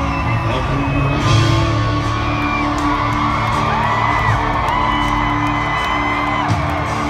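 Live band music over an arena sound system, with whoops from the crowd.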